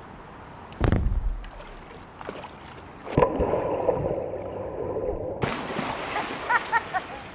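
A person jumping into a swimming pool: a splash about three seconds in, then muffled churning and bubbling water heard from under the surface, then brighter splashing water for the last couple of seconds.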